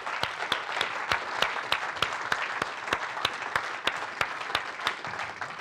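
Audience applauding, with a run of louder claps close to the microphone standing out above the rest; the applause dies away near the end.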